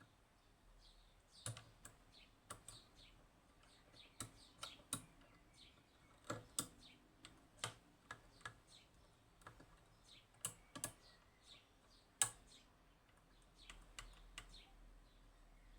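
Faint, irregular metallic clicks and ticks of a pick and tensioner working the levers inside a Union (Chubb) G110 five-lever lock, with one sharper click about twelve seconds in.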